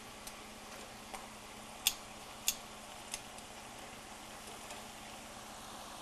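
Potato chips deep-frying in oil with a faint steady sizzle, while metal tongs click against the wire fry basket several times, the two sharpest clicks about two seconds in and half a second apart.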